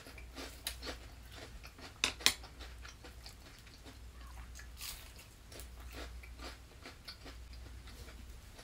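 Crisp chewing and crunching of battered, deep-fried vegetable tempura: a run of small crackles, with two sharp crunches about two seconds in and another cluster near the middle.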